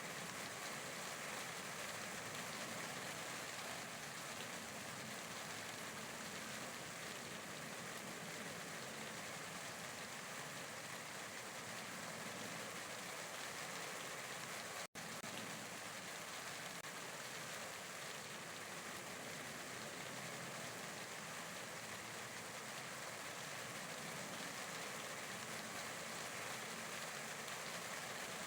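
Steady rain falling, an even hiss with no let-up, broken only by a split-second drop-out about halfway through.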